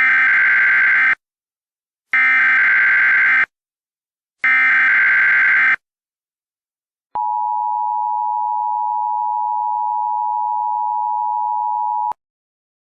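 Emergency Alert System header: three bursts of screeching SAME digital data tones, each just over a second long, then the steady two-tone EAS attention signal for about five seconds, which cuts off sharply. It signals that a new alert message is about to be read.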